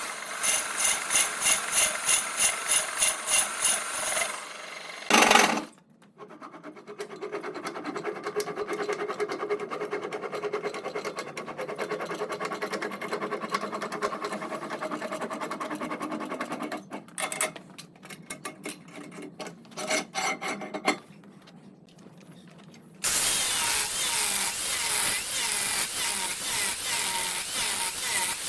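Woodworking power tools cutting and rubbing on wood, in several short segments that change abruptly. It opens with a pulsing at about two to three beats a second, gives way to a brief loud burst, then steadier grinding, and ends with a louder even rasping noise.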